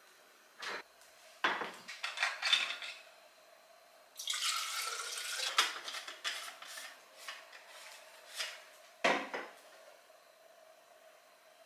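Kitchen handling sounds: a few clinks and knocks, then about a second and a half of water pouring into a plastic sports water bottle, followed by small clicks as its cap is screwed on and a heavier knock later on.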